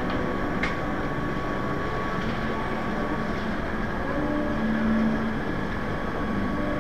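Steady city street noise: a continuous rumble of traffic and the bustle of the street, with a faint steady whine through the first half.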